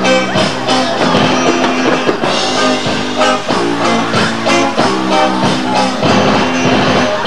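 Live rock band music: electric guitar over a drum kit, playing without a break.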